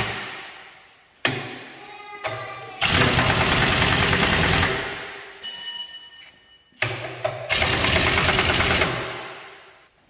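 Pneumatic impact wrench driving the wheel bolts of a John Deere tractor's rear wheel, in short blips and two longer runs of about two seconds each. Each burst echoes off in a large shop.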